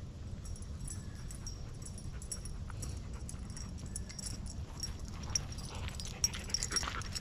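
Black Labrador retriever close by, with small clicks that come more often toward the end over a steady low rumble.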